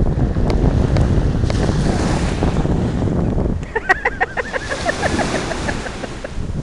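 Wind buffeting the microphone with a loud, even rumble; a little over halfway through it eases and a run of short, high, wavering calls follows.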